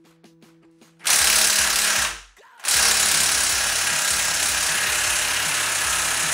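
Cordless impact wrench hammering on a Ford 460 big-block's cylinder head bolt without breaking it loose. It gives a burst of about a second, starting about a second in, then after a short pause a longer steady run.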